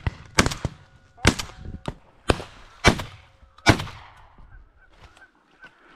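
Shotgun fire: five shots in quick succession, roughly a second apart, each echoing briefly. After the shooting stops, geese honk faintly.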